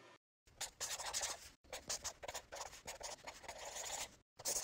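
Handwriting sound: a pen scratching out a run of quick strokes with brief pauses between them, starting about half a second in and ending with one last short stroke near the end.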